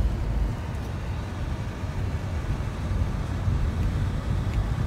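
Steady low rumble of a car driving slowly, heard from inside its cabin.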